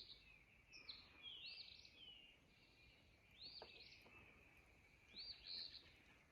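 Faint songbird calls: short, high, arched notes repeating every second or so over quiet background hiss.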